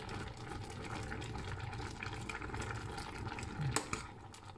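Pot of sour curry simmering on an electric hob while a metal spoon stirs the vegetables, with soft bubbling and small scrapes. There is a sharper clink of the spoon against the stainless steel pot near the end.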